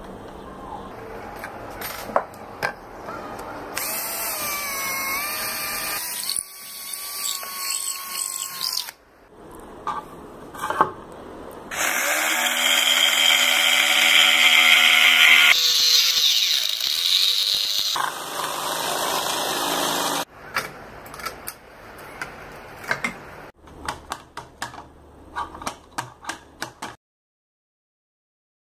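Jigsaw motor running in several bursts, its pitch rising as it spins up and dropping as it winds down, with sharp clicks and knocks of the tool and sled being handled in between.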